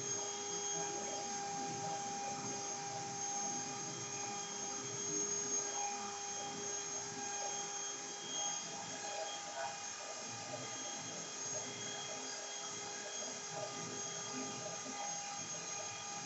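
CNC router running: a steady whine made of several held tones over a rougher, fluctuating machining noise.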